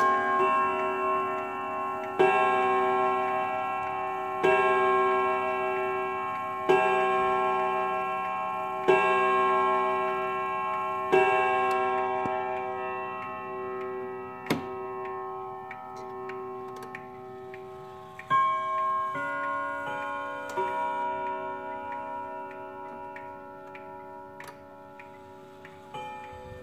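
Hermle triple-chime clock's hammer striking a metal chime rod six times, one stroke about every 2¼ seconds, each note ringing on and fading. A sharp click about 14½ seconds in comes from a lever at the edge of the dial being moved, and from about 18 seconds fainter rod notes of other pitches ring.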